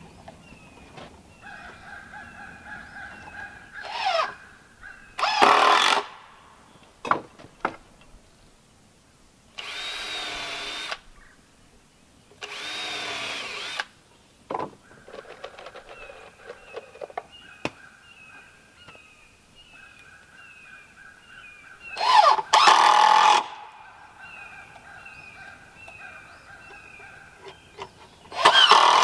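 Power drill running in several short bursts, a few seconds apart, with the pitch wavering during the longer runs. Birds call over and over in the background.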